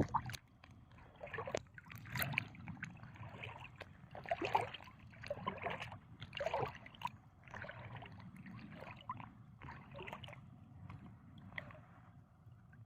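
Small waves lapping and sloshing in a string of short splashes, roughly one a second, with a few sharp clicks among them.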